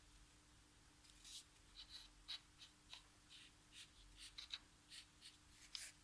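Faint, irregular rustling and scratching of packaging being handled during unpacking: a dozen or so short soft scrapes from about a second in.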